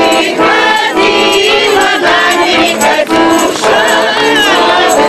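A group of women singing a folk song together to accordion accompaniment, with a steady percussive beat.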